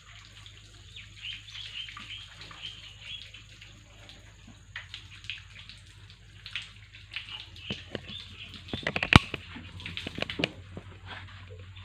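Water splashing and sloshing, with many small clicks and one sharp knock about nine seconds in.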